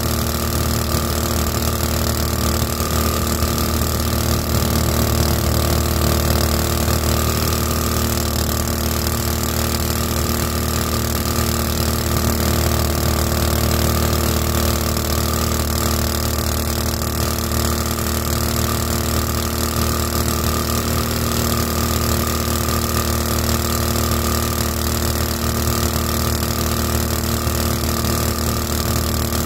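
Small 224cc single-cylinder boat motor running steadily at full speed, driving a 7-inch two-blade prop, with a constant hiss over the engine note.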